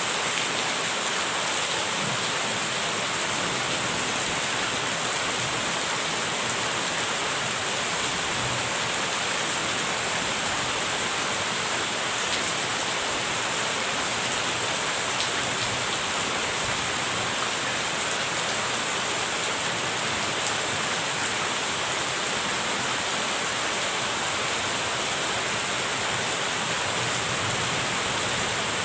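Steady rain falling at an even intensity, a continuous hiss of drops with no thunder or lulls.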